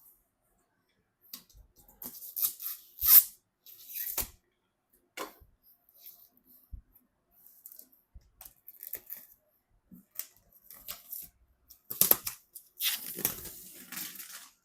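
Irregular clicks, rustles and scrapes of computer parts and packaging being handled during assembly, loudest about three seconds in and again in a longer rustling stretch near the end.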